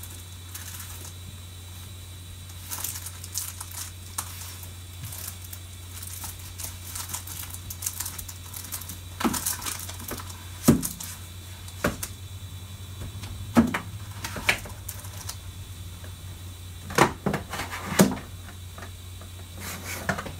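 Scattered clicks and knocks of things being handled, with a few sharper knocks around eleven, thirteen and seventeen to eighteen seconds in, over a steady low hum.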